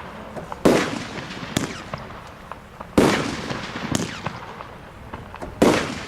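Tropic Exploder 8, a 30 mm fireworks cake, firing its shots. Loud bangs come about every two and a half seconds, each echoing away, with softer bangs between them and scattered small ticks from the white strobe stars.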